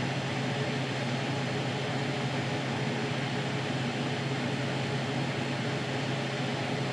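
Steady low background hum with an even hiss, unchanging throughout.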